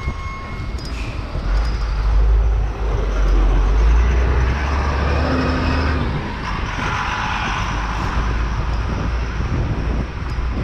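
Street traffic and road noise heard from a moving bicycle, with a low rumble, heaviest in the first half, that is typical of wind on the microphone.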